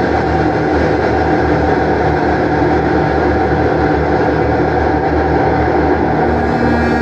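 Contrabass clarinet played through effects pedals into a Walrus R1 reverb on its BFR algorithm, set to sound oceanic, heard through studio speakers. It makes a dense, steady, rumbling wash with a few held tones, and a new held note comes in near the end.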